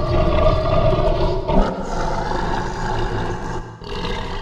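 Monster roar sound effect for the sea-serpent kaiju Tiamat: long roars with short breaks about one and a half seconds in and near the end, where a new roar begins.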